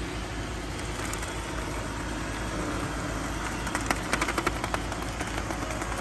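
iRobot Roomba 690 robot vacuum, fitted with Sharpie markers, driving over a paper sheet with its motor and brushes running steadily. Between about four and five seconds in there is a quick run of clicks.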